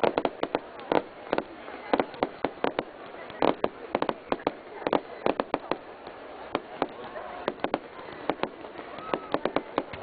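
Aerial fireworks bursting overhead: a dense, irregular run of sharp bangs and crackling pops, several a second, with no let-up.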